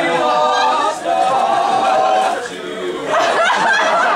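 Several men singing together, holding long sung notes, with chuckling and laughter from the audience mixed in; livelier voices and laughter come in near the end.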